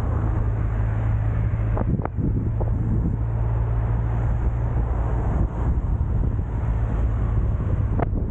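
A steady engine hum with wind rushing over the microphone. There are a few light knocks about two seconds in and again near the end.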